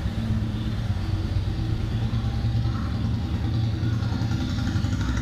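A motor vehicle's engine running close by with a steady low rumble, fading just at the end.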